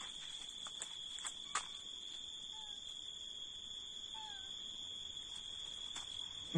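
A steady high-pitched insect trill at night, with two faint short falling meows from stray cats. There is a light tap about one and a half seconds in.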